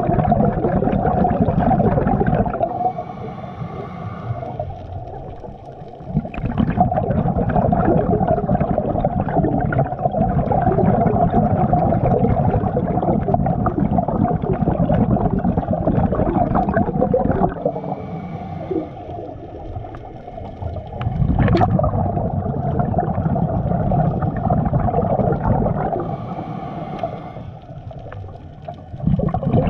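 A scuba diver breathing through a regulator underwater: long stretches of gurgling, rumbling exhaled bubbles, broken three times (about 3, 18 and 26 seconds in) by quieter inhalations of a few seconds with a faint hissing whine.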